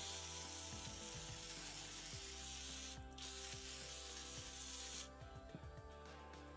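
WD-40 aerosol can spraying through its straw onto a bicycle chain in two long hissing bursts, about three seconds and then about two, with a short break between, coating the dried chain against flash rust.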